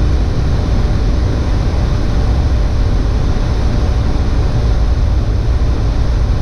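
Steady airliner flight-deck noise in flight: air rushing past the cockpit and the engines running, heard as a deep, even rumble with a hiss over it.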